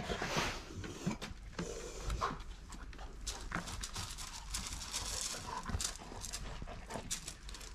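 A dog's footsteps: claws clicking on wooden deck boards, then paws on gravel, heard as scattered light clicks and crunches.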